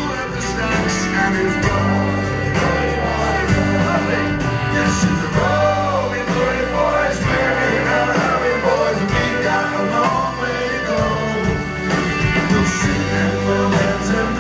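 Live band playing a rollicking sea shanty: a man sings lead into the microphone over strummed acoustic guitar, drums and the rest of the band.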